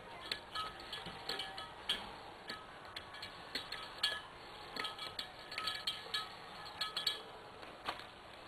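Faint, irregular metallic clinks and ticks of a pick and small steel parts on the cylinder head as the bottom valve spring seats are worked loose.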